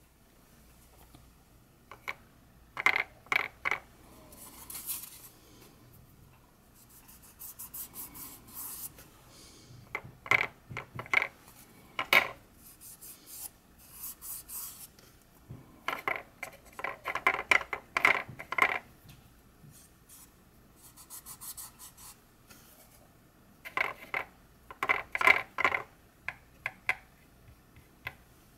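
Clusters of small clicks, taps and scrapes as the wooden model turntable deck is handled and turned by hand on a workbench. They come in short bunches every several seconds with quiet between.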